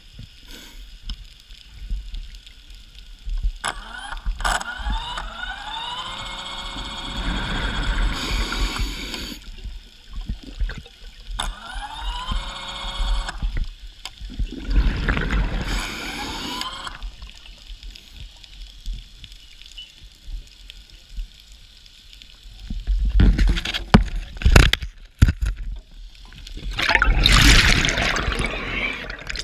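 Scuba diver breathing through a regulator underwater: bursts of exhaled bubbles gurgling every few seconds, between stretches of quieter water.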